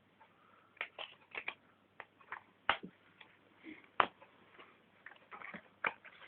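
Irregular light clicks and short rustles of trading cards and booster packs being handled, about a dozen small sounds with no steady rhythm.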